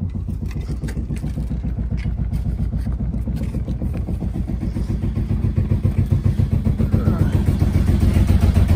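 Yanmar inboard diesel engine idling with a fast, even chugging, growing louder about five seconds in. A few light knocks come in the first few seconds.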